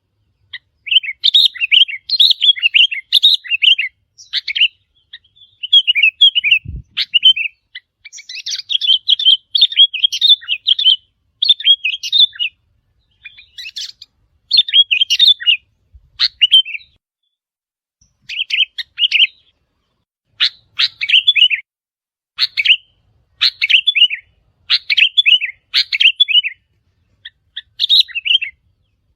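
Sooty-headed bulbul calling: quick, bubbly chirping phrases, each about a second long, repeated again and again with short pauses between them.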